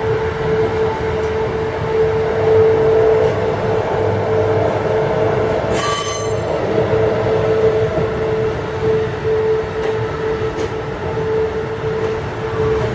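Queensland Rail ICE electric multiple unit running past, a steady rumble with a steady high-pitched tone over it. One brief sharp noise comes about six seconds in.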